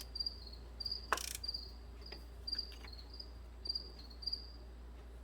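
A cricket chirping repeatedly in short high chirps, about two a second, over a low steady hum, with one sharp click about a second in.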